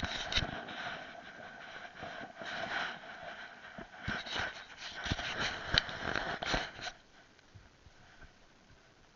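Mountain bike riding over rough trail, with tyre and gravel noise and sharp knocks and rattles from the bike. It goes much quieter about seven seconds in.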